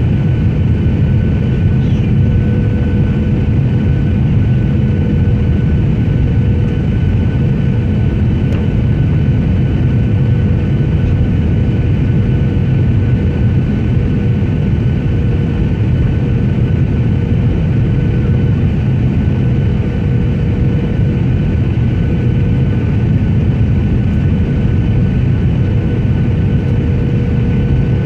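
Steady roar of an airliner's engines and airflow heard inside the passenger cabin, with a faint steady hum and a higher whine held throughout.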